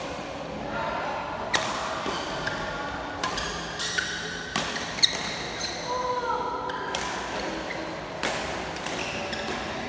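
Badminton rackets hitting a shuttlecock during a rally: several sharp hits, irregularly spaced a second or two apart, with voices in the background.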